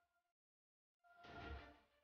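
Faint background music, near silence for the first second, then a soft swell that rises about a second in.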